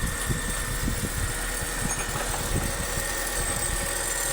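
Honda City i-DSI four-cylinder petrol engine idling steadily after being restarted, its starter now working following a new solenoid and carbon brushes.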